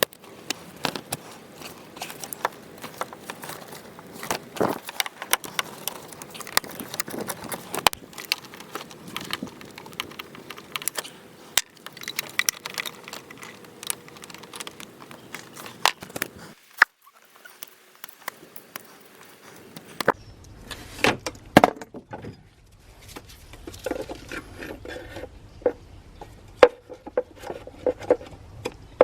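Hand tools and metal parts clinking, clicking and knocking in an irregular string of sharp clatters, as work goes on in a car's engine bay. There is a brief pause a little past halfway, after which a low steady hum runs under the clicks.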